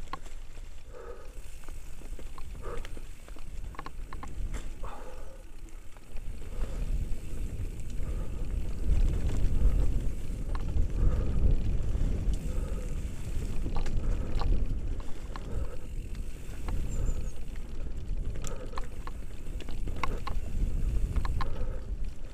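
Mountain bike descending a rough dirt trail: tyre and wind rumble buffeting the microphone, with scattered clicks and rattles from the bike over bumps, growing louder about six seconds in.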